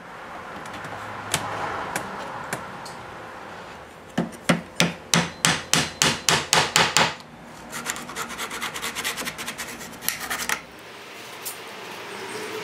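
Knife blade scraping in a crack in the side of a mahogany desk, clearing it out for regluing. About four seconds in, a run of about a dozen sharp hammer taps on a wooden strip comes at about four a second, followed by faster, lighter strokes and then more scraping.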